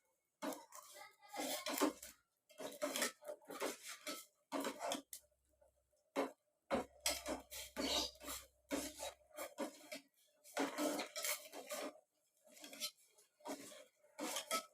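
A spoon scraping and knocking around a pot in uneven repeated strokes, stirring ginger juice and palm sugar as it heats toward the boil.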